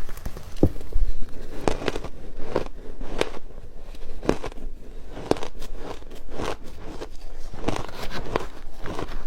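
A person biting and chewing ice: a string of sharp, crackly crunches at irregular spacing, about one a second.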